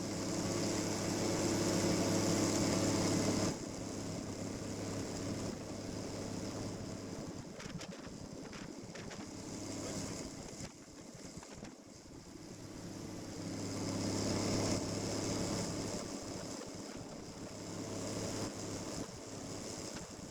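Snowmobile engine running steadily, then dropping abruptly to a quieter, wavering sound about three and a half seconds in, swelling again later.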